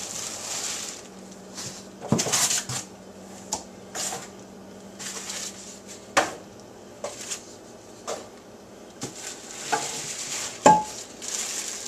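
Plastic-wrapped nonstick pots and pans being handled and lifted out of a cardboard box: crinkling plastic wrap and scattered light knocks. Near the end comes a sharper knock with a brief ring.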